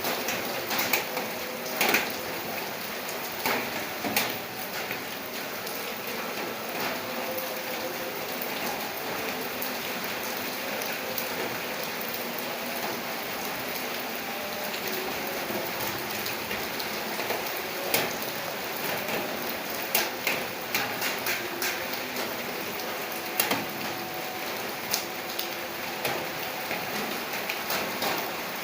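Steady rain falling, with a continuous hiss and scattered sharper drips and drop impacts on a hard surface.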